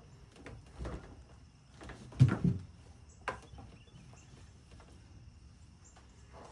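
A few knocks and thumps from hands-on work, the loudest a short cluster about two seconds in, followed by a single sharp click about a second later.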